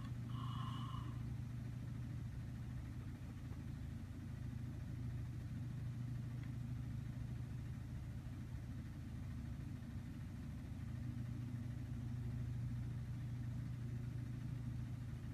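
Steady low machine hum, like a motor running, with slight swells in level.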